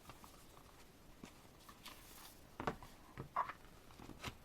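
Quiet handling of a paper album: a few soft taps and rustles of photo-book pages being turned, bunched in the second half.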